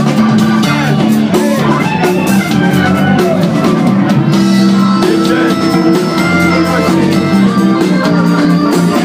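A live band playing an instrumental funk number: electric guitars over a drum kit, loud and steady without a break.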